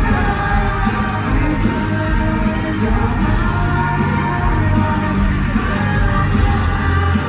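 Live rock band music with singing, playing steadily throughout.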